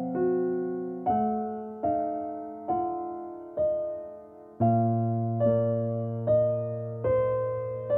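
Background music: slow, soft piano, each note or chord struck and left to fade, about one a second.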